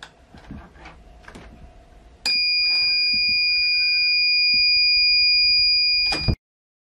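Homemade door alarm's buzzer sounding one steady high-pitched tone for about four seconds, starting about two seconds in after a few faint knocks, then cutting off suddenly.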